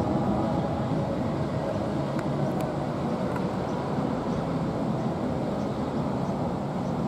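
Steady low rumble and hum of the cruise ship Sea Princess passing close by under way.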